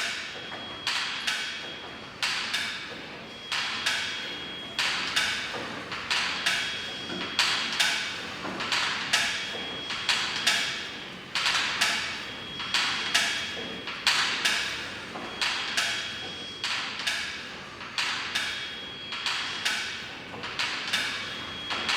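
Exercise machine knocking in a steady rhythm as it is worked through leg repetitions, about one knock a second, with a faint short high tone between some strokes.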